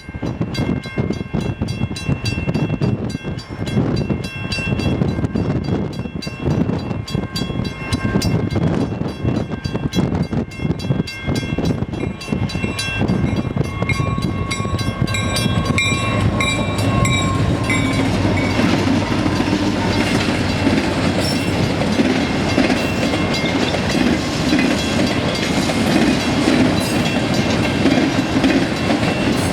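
Two EMD SD40-2 diesel locomotives, each with a 16-cylinder engine, approach and pass with a freight train. The horn sounds in blasts during the first half or so. From about 18 seconds in, the engines run louder, with the clatter of the train's wheels.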